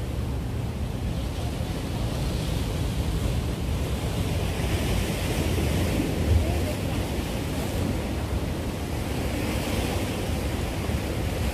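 Sea surf washing against the breakwater rocks, swelling twice, over a steady rumble of wind buffeting the microphone. A dull thump about six seconds in.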